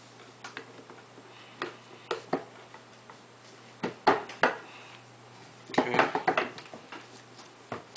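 Scattered metal clicks and clunks as the end cap of a Meyer E-60 H snow plow motor is pressed and turned down onto the motor housing over the armature bearing, lining up its holes. The knocks are loudest about four seconds in, with a quick run of clatter about six seconds in.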